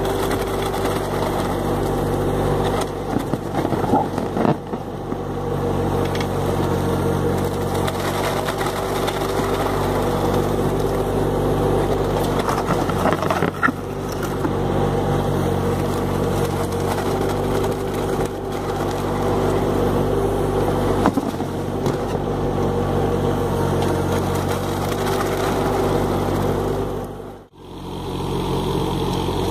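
John Deere 17D mini excavator's diesel engine running steadily while its bucket churns wet concrete in a wooden bin, with a few knocks from the bucket and mix. The sound cuts out for a moment near the end.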